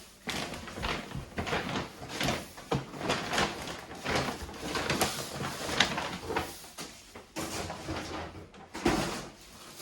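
Grocery bags and packaging rustling and crinkling as groceries are unpacked and handled, with irregular taps and knocks.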